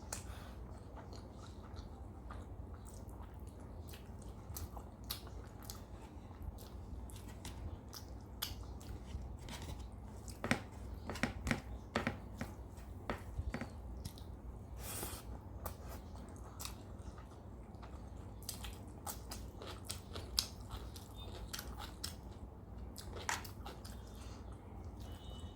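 Close-up chewing and eating sounds from a rice-and-curry meal: wet mouth smacks and many sharp clicks, densest about ten to fourteen seconds in.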